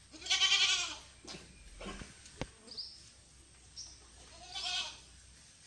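An animal bleating twice: a quavering call just after the start and a shorter one near the end, with a sharp click in between.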